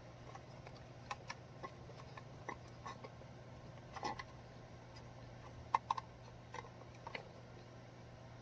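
An eye screw being twisted by hand into a wooden birdhouse, giving small irregular clicks and taps, with a sharper pair of clicks about six seconds in. A low steady hum runs underneath.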